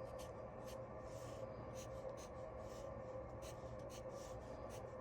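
Faint scratchy strokes of a drawing tool on a surface as small patterns are drawn, short strokes coming irregularly several times a second over a steady low hum.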